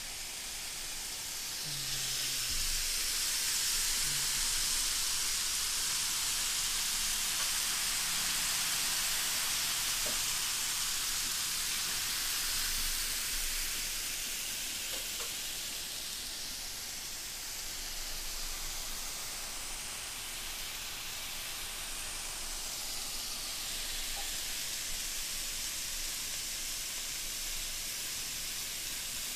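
Pork chops sizzling on the ridged grate of a round electric indoor grill: a steady frying hiss, louder for the first half and easing a little after.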